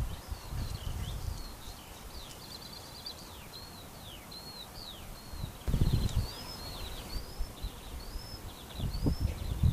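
Small birds chirping outdoors, a steady run of short, high, arching notes, with two brief low rumbles about six and nine seconds in.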